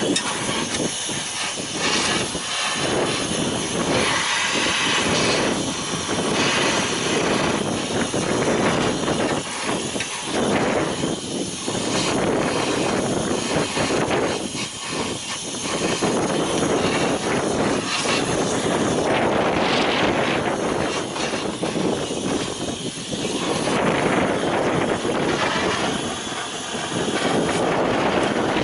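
Gas torch flame burning steadily against a seized alternator-bracket bolt on a Detroit Series 60 diesel, heating it to break it free.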